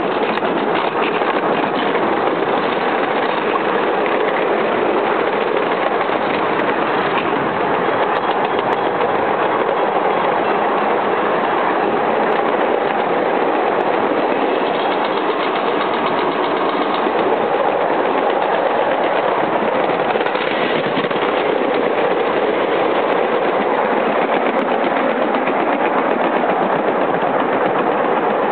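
Ride-on 7¼-inch gauge miniature steam train running along its track: a loud, steady noise of the wheels rolling on the rails and the engine working.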